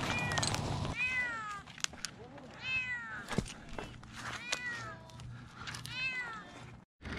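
A cat stuck high up a tree meowing repeatedly: about five meows, each falling in pitch. A few sharp clicks come in between.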